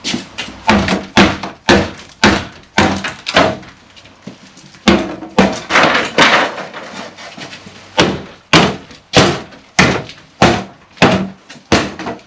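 Repeated heavy hammer blows knocking apart a rotten timber stud wall, about two sharp knocks a second with short lulls between runs.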